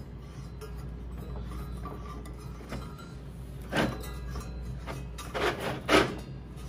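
Metal camp-stove burner being screwed onto a propane cylinder by hand: three short scraping knocks about four, five and a half and six seconds in, the last the loudest, over a steady low hum.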